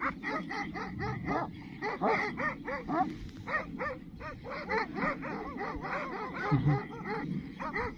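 Several large dogs barking rapidly, short barks from more than one dog overlapping with no pause.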